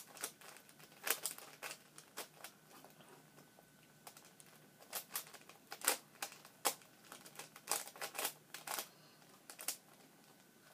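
LanLan 4x4 puzzle cube's plastic layers clicking as they are turned by hand, in irregular short runs of quick turns with brief pauses between.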